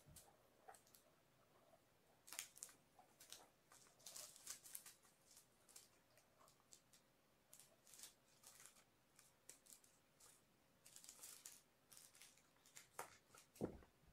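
A young kitten scampering, pouncing and rolling on a carpeted floor, making faint, scattered scratching and rustling noises as its paws and claws catch the carpet and bat at toys. There is a louder thump about a second before the end as it flips over onto the floor.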